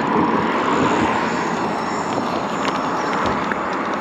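Steady rushing wind and road noise from a moving e-bike.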